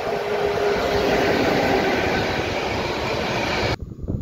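PKP Cargo ET22 electric locomotive hauling a container train, running past close by with a loud, steady rush of wheel and rail noise and a steady hum in the first second or so. The sound cuts off suddenly near the end, leaving only faint noise.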